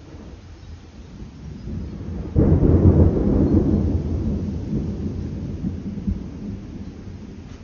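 Loud thunder from a severe thunderstorm. A low rumble builds, then a sudden crack comes about two and a half seconds in and rolls away over the next few seconds.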